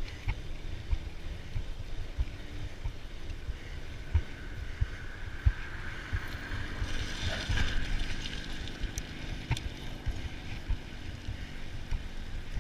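Wind buffeting the microphone as a steady low rumble with frequent soft thumps. Around the middle a broad hiss swells up and fades away again.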